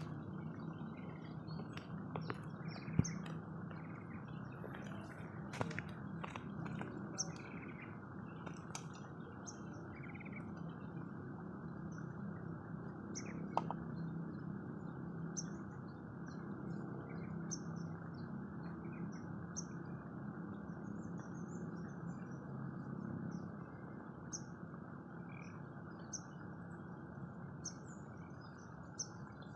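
A bird chirping over and over, with short high calls every second or two, above a steady low background rumble of outdoor noise.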